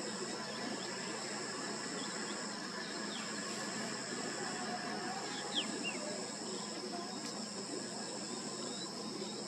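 A steady, high-pitched chorus of insects, with a few faint short bird chirps about halfway through.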